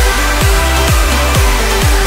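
Background music: an electronic dance track in an instrumental stretch, with a steady kick drum about twice a second.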